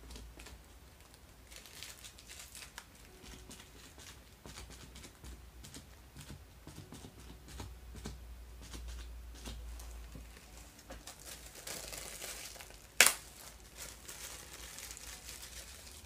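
A pinched scrap of plastic wrapping dabbed over and over against a painted canvas: soft crinkling with many small irregular pats. About thirteen seconds in, one sharp click.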